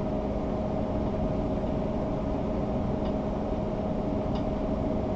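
Steady machine hum with a constant whine, typical of a running desktop computer's cooling fans, with a couple of faint ticks partway through.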